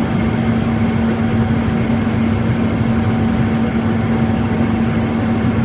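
Steady in-flight drone inside an airliner: jet engine and airflow noise with a constant low hum running through it.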